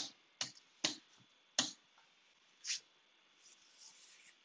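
Computer keyboard keystrokes: five separate sharp clicks at uneven spacing, the first the loudest, as a short terminal command is finished and entered.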